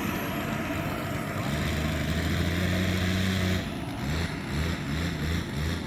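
KingTech K102 model jet turbine running at low power on the ground: a thin, high whine sinking slightly in pitch over a steady low hum that begins to waver about halfway through.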